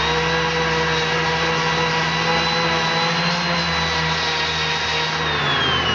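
Electric sander running steadily with a motor whine while smoothing the welded-up rail of a chainsaw bar, then winding down in pitch about five seconds in.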